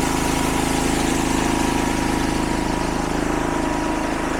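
Farm engine running steadily, with a thin high whine alongside it that fades out about three seconds in.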